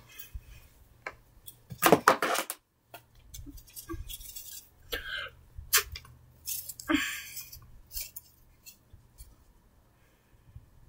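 Wooden sticks and cardboard being handled and knocked together as a homemade toy bow and arrow is readied: scattered clicks and knocks with a few short scraping rustles, the loudest about two seconds in, fewer sounds near the end.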